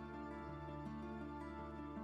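Soft background music: gentle sustained instrumental notes changing chord every half second or so.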